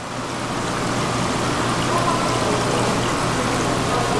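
Steady rush of running water, even and unbroken, over a low steady hum.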